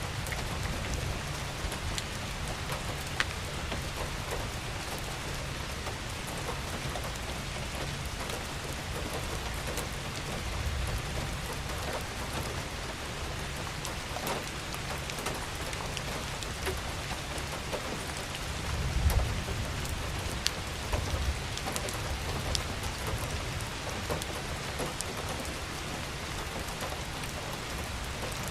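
Steady rain falling, an even hiss with scattered individual drops ticking. A brief low rumble swells about two-thirds of the way through.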